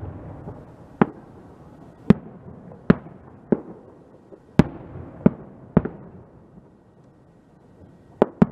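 Aerial fireworks shells bursting: about nine sharp bangs at irregular intervals, with a lull of about two seconds before a quick double bang near the end.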